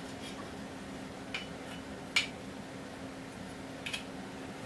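A few light metallic clicks and taps as a quick-detach scope mount is tried on a 20 mm rail, the sharpest about two seconds in and a quick double click near the end. A low steady hum runs underneath.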